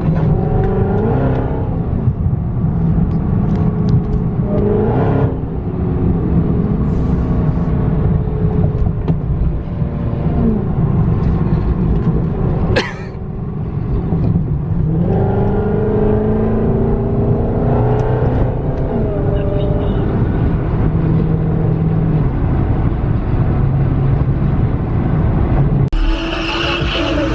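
Dodge Hemi V8 muscle car on the move, its engine revving and accelerating, the pitch climbing and dropping again and again as it pulls through the gears. The sound breaks off abruptly about halfway through, and the character of the engine changes near the end.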